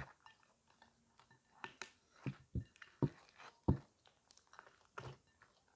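Hands squeezing and folding sticky glitter slime studded with small foam beads, giving irregular short squelches and pops.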